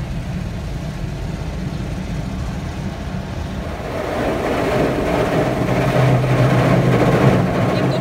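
Car engine running, heard from inside the cabin. About four seconds in, the rotating brushes of an automatic car wash begin scrubbing over the car, adding a louder scrubbing and spraying noise over a steady hum.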